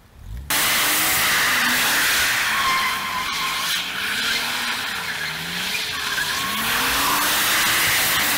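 BMW Z3 2.8's straight-six engine revving up and down during a drift, with tyres sliding and hissing on wet tarmac. It starts suddenly about half a second in.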